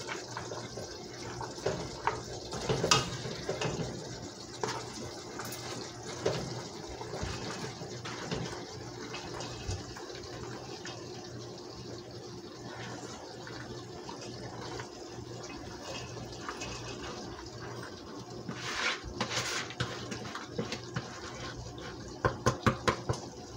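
Steady hiss from a pot of tomatoes cooking on a gas stove, while shredded cabbage is scraped from a plastic bowl into it with a spatula. A few scrapes and knocks stand out, the loudest rustle coming near the end.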